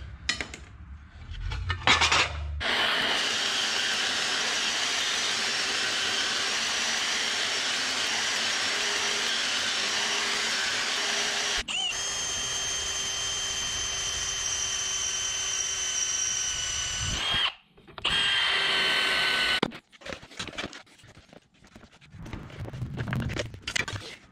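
Cordless drill running steadily under load, its bit working a bolt hole in a metal dozer cover plate held in a vise. It dips briefly about halfway with a whine in the sound, then stops. It runs again for about two seconds, its whine falling, and the plate is knocked about as it is handled.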